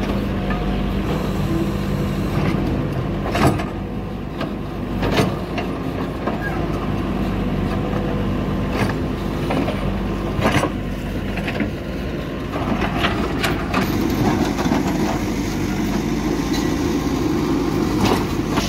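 JCB 3DX backhoe loader's diesel engine running under load as its backhoe bucket digs into hard, stony ground, with several sharp knocks and scrapes of the bucket teeth on rock. The engine gets louder about two-thirds of the way through. The ground is so hard that the bucket teeth barely bite.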